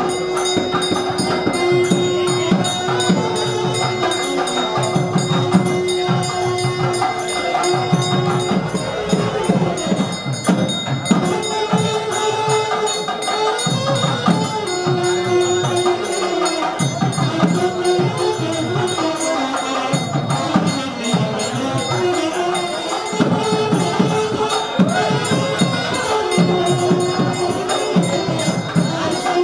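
Music with percussion and a steady jingling rhythm, under a melody of long held notes.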